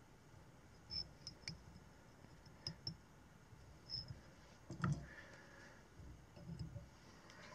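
Faint, scattered clicks and small handling noises as tying thread is wound onto a dry-fly hook held in a fly-tying vise, the sharpest click about five seconds in.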